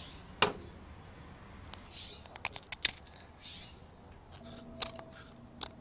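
Pocketknife blade shaving wood off the end of a hammer handle: short scraping strokes and small clicks, after one sharp knock about half a second in.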